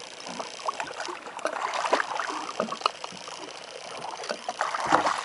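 Water splashing and sloshing around a small boat, with scattered knocks and clatter on board.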